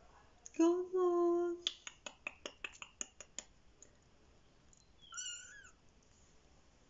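A young kitten gives one high, rising-and-falling meow about five seconds in. Earlier comes a louder, steady, lower-pitched sound about a second long, followed by a quick run of about ten sharp clicks.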